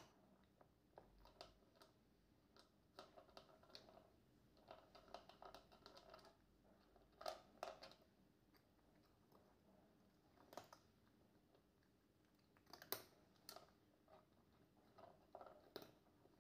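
Flame point Siamese cat eating from a plastic bowl: faint, irregular crunching and clicking of chewed food, coming in short clusters with the loudest bites about halfway through and again about three-quarters of the way through.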